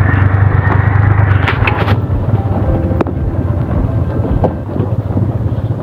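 Motorcycle engine running steadily at low speed, with wind rushing on the microphone, heavier over the first two seconds. A single sharp click about three seconds in.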